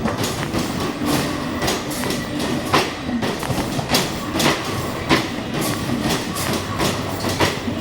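Basketball arcade shooting machine in play: balls knocking against the backboard and rim about once or twice a second and rattling back down the return ramp, with the machine's electronic sound effects faintly underneath.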